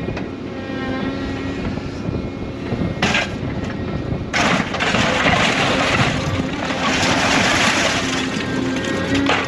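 Scrap material handler's engine and hydraulics running steadily as the orange-peel grapple swings over the scrap pile. From about four seconds in, a loud rush of noise sets in and keeps on for several seconds as the grapple works into the scrap metal, with a knock a little before it starts and another near the end.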